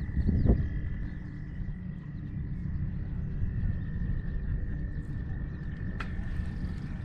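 A frog's steady high-pitched trill runs on over a low rumble of wind on the microphone. A dull bump comes about half a second in, and a sharp click about six seconds in.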